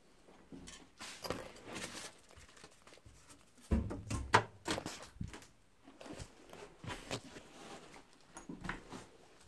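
Handling and rummaging through junk on shelves: scattered rustles, light knocks and clicks, with a heavier thump and clatter about four seconds in.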